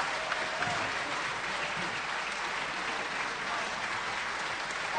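Large audience applauding steadily, an even wash of many hands clapping.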